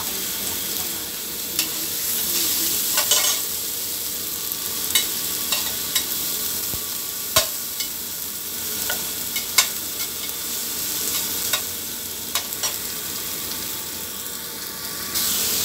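Tomato and green onion sizzling steadily in hot oil in a pan as they are sautéed, with a dozen or so sharp clicks of a utensil against the pan as they are stirred.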